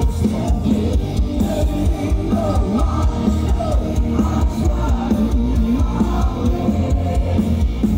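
A folk metal band playing live at full volume, with distorted electric guitars, drums and a heavy bass, heard from the crowd through a phone's microphone.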